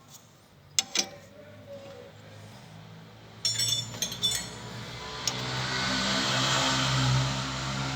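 Metal tools clinking on the Nissan Sentra's stabilizer link nut as it is retightened, with a few sharp clicks and then a burst of clinks about three and a half seconds in. From about four seconds in, a steady low mechanical hum with hiss builds up and holds until near the end.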